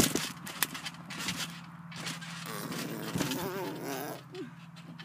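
Thumps of a trampoline mat as a boy bounces, flips and lands, the loudest right at the start, over a steady low hum. A wavering tone runs for about two seconds in the middle.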